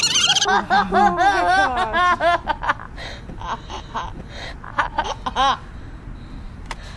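Children laughing hard in bouts, with a high-pitched squeal right at the start; the laughter is loudest over the first few seconds and dies down near the end.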